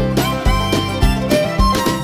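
Background country-style music with string instruments and a steady beat, about two beats a second.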